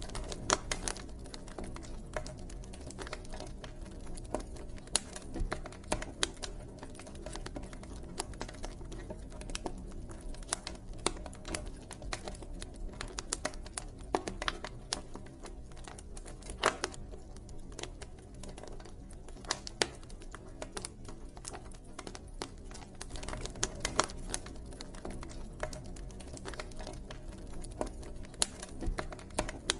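Campfire burning with a steady low rumble of flames and frequent irregular crackles and pops of burning wood.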